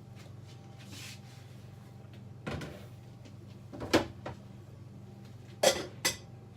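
A glass bottle being handled: a soft knock about two and a half seconds in, a sharp knock near four seconds, and two more sharp knocks half a second apart near the end.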